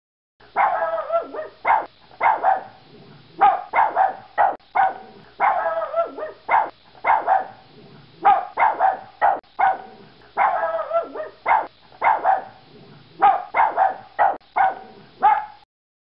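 Yorkshire terrier barking: quick runs of barks with single barks between them, the same sequence repeating about every five seconds.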